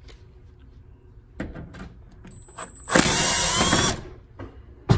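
Cordless power drill/driver running for about a second, driving out the screw that holds the microwave control panel, with a whine that rises as the motor spins up. Light handling clicks come before it and a sharp knock near the end.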